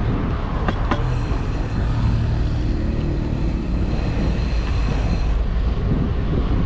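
Steady rush of wind and road noise from riding a bicycle, with motor traffic passing close by.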